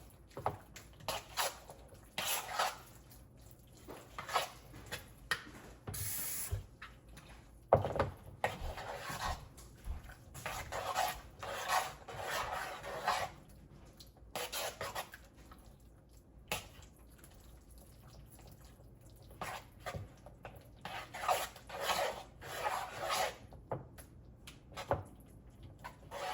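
Kitchen utensils rubbing and scraping against a bowl or pan in a string of short bursts with pauses between, as food is worked by hand.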